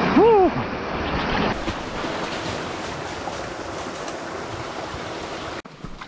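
Steady rush of a waterfall pouring into a pool, opening with a man's short vocal cry that rises and falls in pitch. Near the end the rush drops away to the quieter trickle of a shallow creek.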